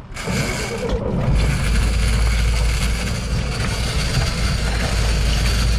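Boat engine running under throttle, a steady low rumble that comes up about a second in, over a loud rush of water and wind.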